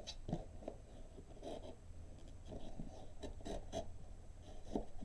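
Faint handling noises of a graphics card being worked into its motherboard slot: irregular light rubbing, scraping and small taps of hands on plastic and metal hardware.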